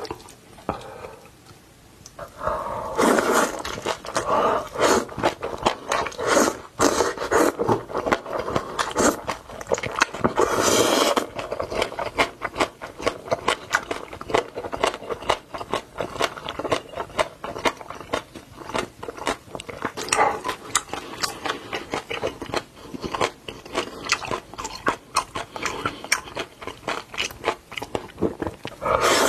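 Close-miked eating sounds: biting, chewing and crunching food, with many quick mouth clicks and a few louder bites.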